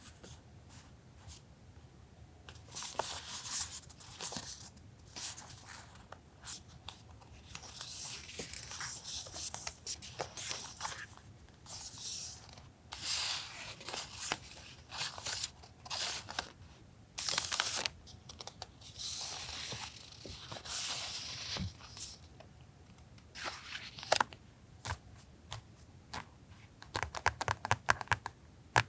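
Paper stationery and plastic packaging being handled: repeated bursts of rustling and crinkling, with sharp taps and clicks and a quick run of ticks near the end.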